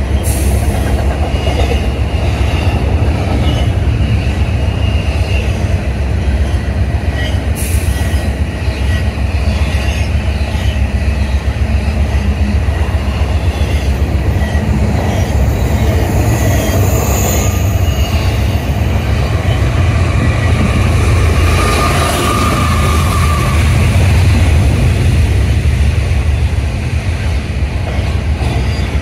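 Freight cars of a CSX manifest train rolling past close by: a steady heavy rumble of steel wheels on rail, with clicking over the rail joints and short, faint wheel squeals that come and go. The clearest squeal comes about two-thirds of the way through.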